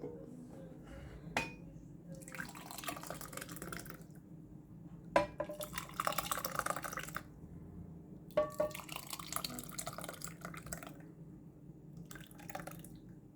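Hot orange and lemon juice poured into three glasses one after another: three splashing pours of about two seconds each, each opening with a light clink of glass, and a short extra pour near the end.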